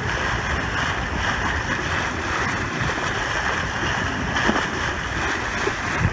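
Steady rush of water and wind from a boat under way, with wind buffeting the microphone.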